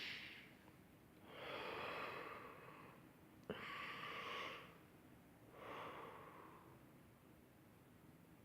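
A man breathing deeply and slowly, three long audible breaths about two seconds apart, with a short click at the start of the middle one. The breaths are taken to try to stop hiccups.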